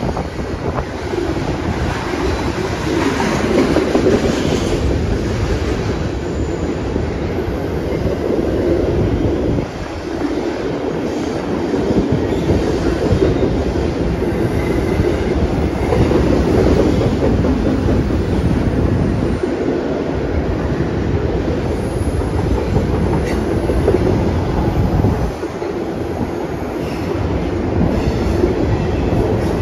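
Double-stack intermodal container train rolling past, a steady rumble and clatter of its wheels on the rails. The sound dips briefly three times, about a third of the way in, two-thirds in and near the end.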